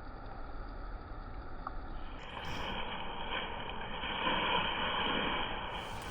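Steady rush of river water, growing louder from about two seconds in.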